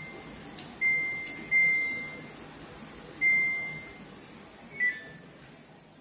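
Samsung ecobubble washing machine's control panel beeping as its program dial is turned and buttons pressed: three single high-pitched beeps, each fading out, with sharp clicks from the dial between them, then a short falling two-note beep about five seconds in.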